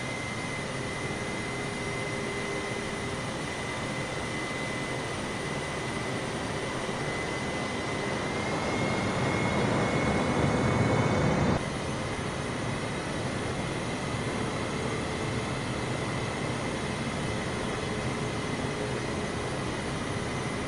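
Jet airliner engines running with a steady high whine over a broad rush of noise. The noise swells louder from about eight seconds in, then drops suddenly a few seconds later and stays steady.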